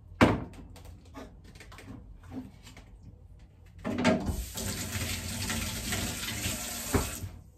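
Kitchen tap running into a stainless steel sink while hands are rinsed under it, starting about halfway through and stopping near the end. Before it, a sharp knock and a few light clicks on the counter.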